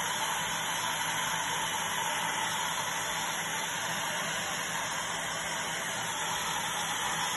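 Small handheld hair dryer running steadily on setting 3, a constant rush of blown air.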